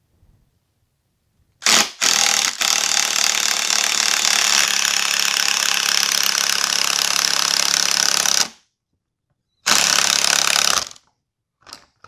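Cordless 19.2-volt impact driver spinning a stuck fuel-tank bolt together with its nut insert, which turns freely in the plastic tank, so that friction heats the insert loose. After a short blip it runs steadily for about six seconds, stops, then runs again for about a second.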